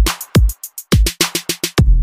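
Background music with an electronic drum-machine beat. The bass drops out for a break of quick drum hits, and the full beat comes back near the end.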